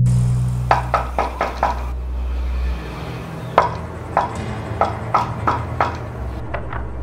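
A run of sharp knocks on wood: about five quick knocks, then after a pause a slower, evenly spaced series of about seven, over a low drone. A steady low hum cuts off about a second in.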